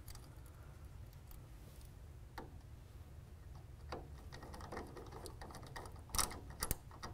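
Faint clicks and light scraping as insulated wires are handled and pushed into the neutral terminal block of a breaker panel, over a low steady hum. A louder cluster of clicks comes about six seconds in.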